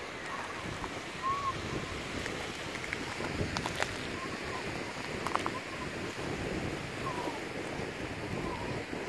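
Surf washing on the shore with wind buffeting the microphone, under footsteps crunching on shell-strewn rock. A few sharp clicks come about three and a half and five seconds in, and a few faint short chirps are scattered throughout.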